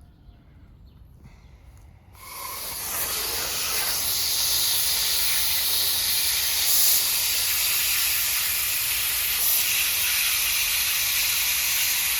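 Coil cleaner spraying onto an AC condenser coil, a steady hiss that starts suddenly about two seconds in. The coil is plugged with debris and is being cleaned.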